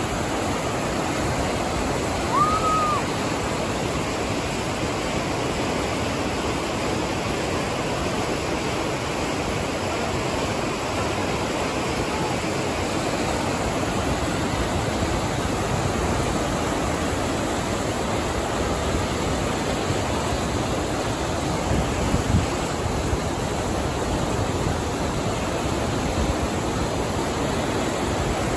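Whitewater rapids of a canoe slalom channel rushing in a steady, dense roar. A short high arching note sounds about two and a half seconds in, and a brief low thump comes later on.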